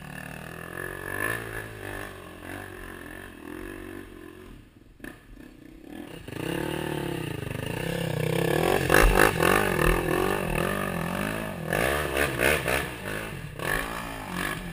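Dirt bike engine revving up and down, its note climbing and getting louder from about six seconds in, with knocks and clatter as the bike rides over roots.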